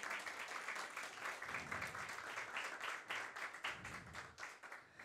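Audience applauding, many hands clapping at once; the clapping thins out and dies away near the end.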